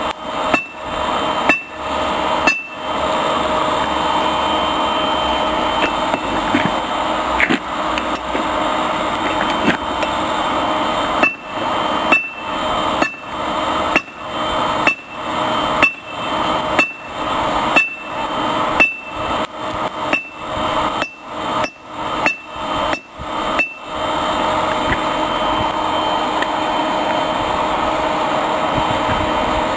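Hand hammer striking a hot railroad spike on a homemade anvil, each blow with a short metallic ring: three strikes at the start, a pause, then a steady run of about a dozen blows a little faster than one a second. Underneath is a steady rush of air from the forge's blower, a mattress pump.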